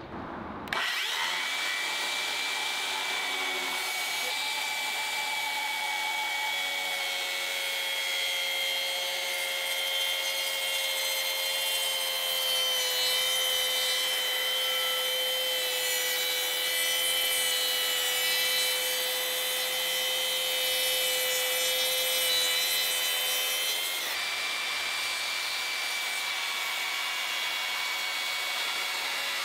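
Makita HS004G 40V brushless cordless circular saw with a 190 mm blade cutting timber. It starts abruptly about a second in and runs at a steady whine through the wood, and the tone shifts about 24 seconds in.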